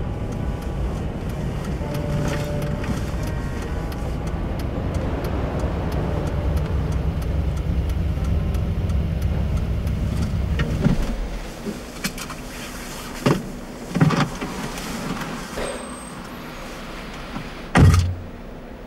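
Car running at low speed as it pulls in, with a steady low rumble inside the cabin. About eleven seconds in the engine is switched off and the rumble stops. A few short knocks follow, and a louder thud comes near the end.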